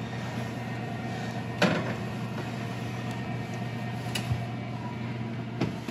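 Metal loaf pans set down on a wire oven rack: a sharp clank about a second and a half in, then fainter knocks later, over a steady hum.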